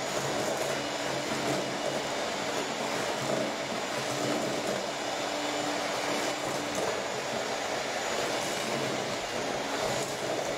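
Electric hand mixer running steadily at a constant speed, its beaters churning through butter and sugar in a stainless steel bowl as they are creamed together.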